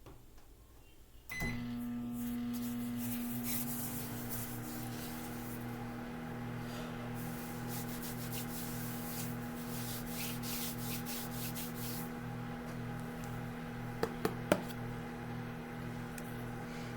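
Microwave oven starting about a second in and running with a steady hum and a low, even pulsing. Two sharp clicks come near the end.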